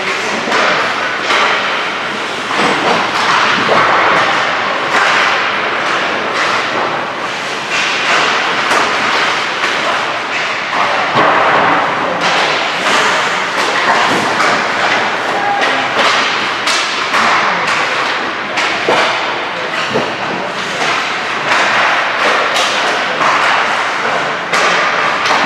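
Ice hockey play: skate blades scraping and carving the ice, with frequent sharp knocks of sticks and pucks against sticks and boards.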